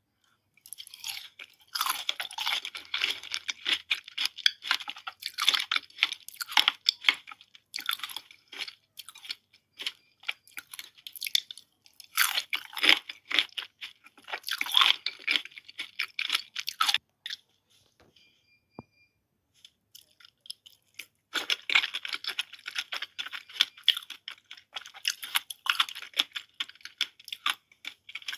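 Close-miked chewing and crunching of fresh fruit, wet and crackly, in long spells broken by short pauses.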